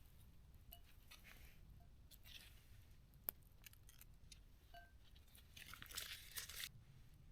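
Faint handling sounds of butter being sliced with a knife: light scrapes, one sharp click about three seconds in, and a crunchy scraping lasting about a second near the end.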